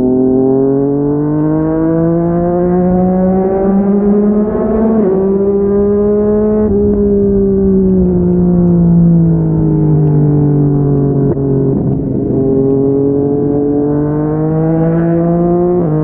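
Yamaha MT-09's inline three-cylinder engine through a Yoshimura R55 slip-on exhaust. It pulls up through the revs, with a sharp break in pitch about five seconds in, like a gear change. It then eases off and falls in pitch for several seconds, and builds again near the end.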